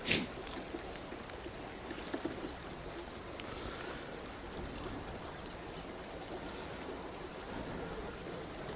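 Steady rushing water noise, with one sharp knock right at the start and a few small clicks later.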